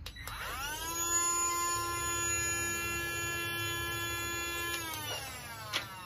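The small electric motor of a Baseus C2 cordless mini capsule vacuum cleaner, switched on for a suction test. It whines up to speed, rising in pitch over about a second, runs at a steady high whine for about four seconds, then is switched off and winds down with a falling pitch.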